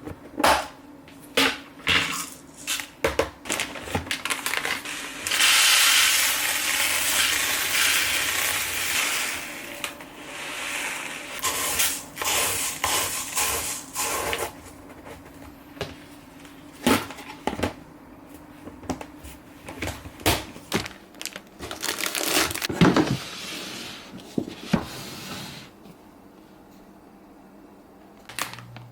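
Objects being handled at close range: a run of sharp clicks and knocks, with two longer stretches of hissing noise, about five to ten seconds in and again near twenty-two seconds.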